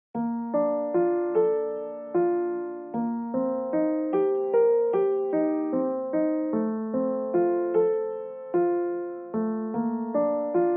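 Background music: a slow solo piano piece, single notes and chords struck about twice a second, each ringing and fading, starting abruptly out of silence.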